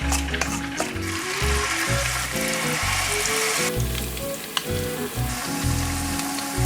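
Food sizzling as it fries in a pan, the hiss easing somewhat about halfway through, under background music with a melody and bass line.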